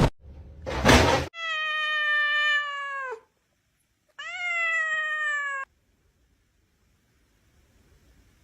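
A domestic cat giving two long, drawn-out meows, each held for about a second and a half and dropping in pitch at the end. Just before the first meow there is a short rustle and a thump.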